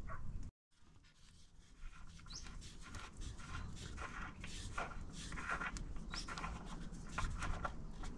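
Faint clicks and scrapes of a steel engine-oil drain plug being spun out of a tractor sump by hand, with a couple of brief high chirps among them.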